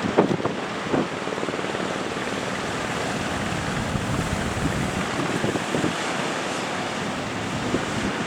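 Surf breaking with strong wind buffeting the microphone, a steady rushing noise with a few short splashes or knocks in the first second.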